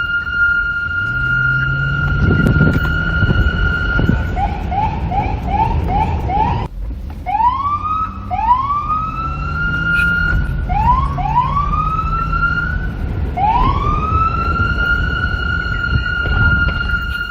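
Police car siren: a steady high tone, then a quick run of five short rising yelps, then after a brief break several rising wails that climb and hold their pitch, over a low rumble.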